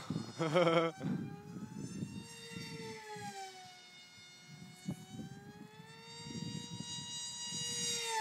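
Brushless electric motor and propeller of an RC model plane, a steady high whine that slowly rises and falls in pitch as the plane flies about. About half a second in there is a short, louder wavering sound.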